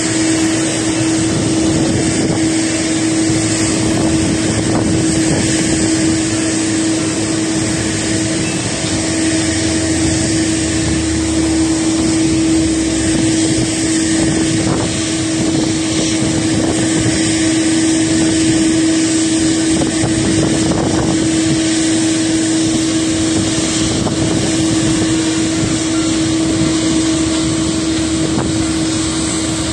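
Steady jet noise of airliners on the apron and taxiway, with a constant droning hum and wind on the microphone.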